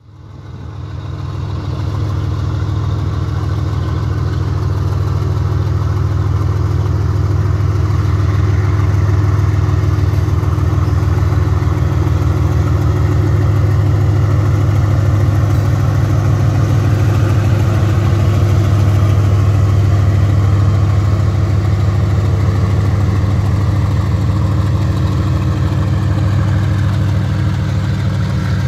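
GE WDG4G (ES43ACmi) locomotive's turbocharged four-stroke V-12 GEVO diesel engine chugging steadily as it hauls a tanker train, with a deep, even firing pulse. The sound fades in over the first second or two.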